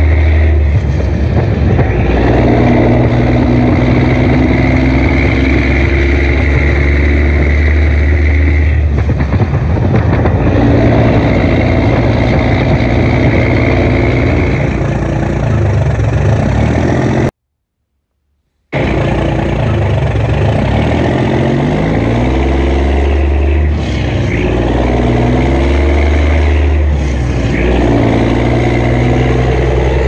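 Truck engine running, its pitch rising several times as it revs up in the second half. It cuts out to silence for about a second just past the middle, then picks up again.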